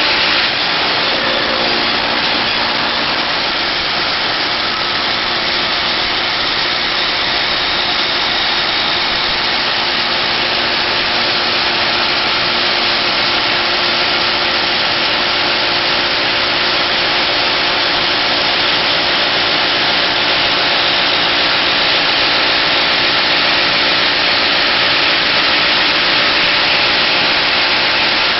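A machine's engine running steadily, giving an even, unbroken noise with a faint low hum underneath.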